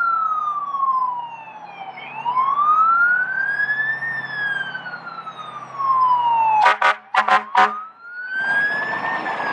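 Fire engine siren wailing, its pitch rising and falling slowly and repeatedly, with the truck's engine running underneath. About seven seconds in, four short, sharp blasts break through the wail.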